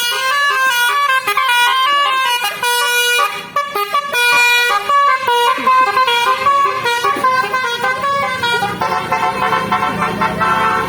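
Telolet musical horn playing a fast tune of short, stepped horn notes, several pitches at once. Near the end the notes merge into a denser held chord.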